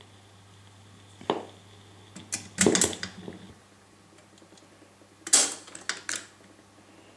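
Philips AG4116 record player's automatic stop mechanism at the end of the record: clicks and mechanical clatter as the tonearm is lifted and swung back to its rest, loudest about two and a half seconds in and again a little after five seconds, over a low steady hum.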